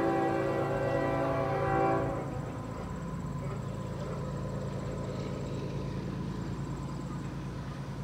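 Multi-chime air horn of an approaching CSX GE ES44AH diesel locomotive sounding a steady chord that cuts off about two seconds in, followed by the low, steady rumble of the approaching diesel freight train.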